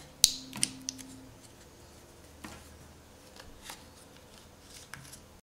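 Pry tool prying a Google Pixel XL's mid-frame away from its housing: a few sharp clicks and snaps in the first second, then fainter scattered clicks. The sound cuts off suddenly near the end.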